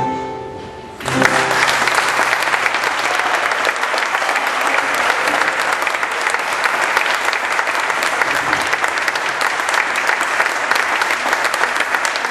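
The last sung note and guitar of a fado song fade out, and about a second in an audience bursts into steady, sustained applause.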